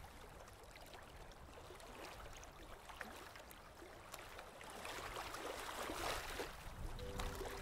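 Faint underwater ambience picked up through the camera housing: low water noise with scattered small crackling clicks, swelling into a louder rushing, bubbling hiss about five seconds in. Music comes back in near the end.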